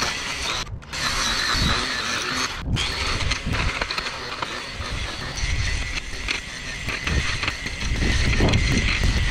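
Battery-powered string trimmer running with a steady high motor whine, its line cutting grass along a kerb edge. The sound breaks off briefly twice in the first three seconds.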